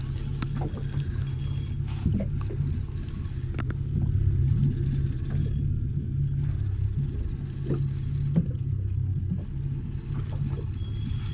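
Small fishing boat's outboard motor running steadily, with scattered faint clicks and squeaks over it.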